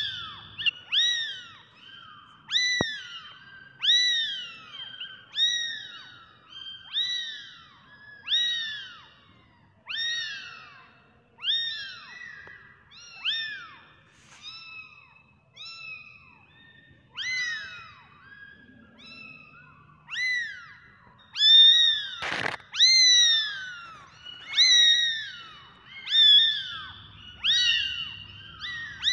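Very young kittens meowing over and over, thin high-pitched cries that rise and fall, about one a second and often overlapping. A single sharp click sounds about three-quarters of the way through.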